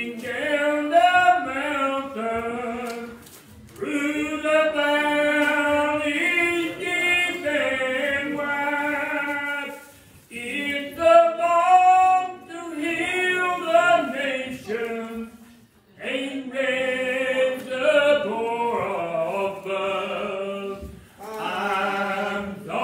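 Voices singing a gospel hymn in the congregation, a man's voice prominent, in sung phrases of several seconds with short breaks between them.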